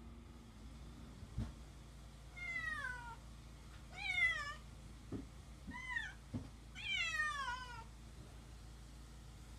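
Domestic cat meowing four times, each call falling in pitch, the second the loudest, with a few short soft knocks in between.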